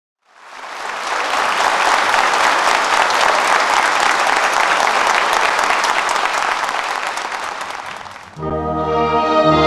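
Audience applauding, swelling up at the start and holding steady, then dying away after about eight seconds as the band comes in with held chords.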